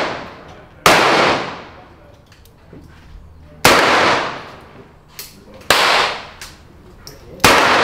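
Revolver fired four times, the shots one to three seconds apart, each sharp crack trailing off in about a second of echo.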